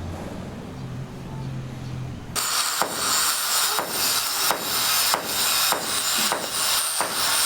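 A low engine-like hum cuts off abruptly about two and a half seconds in. It gives way to regular hammer strikes, about two a second, over a steady hiss typical of a building site.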